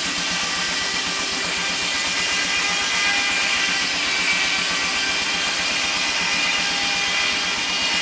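Steam-powered circular sawmill blade sawing through a log on the carriage, a steady sawing noise.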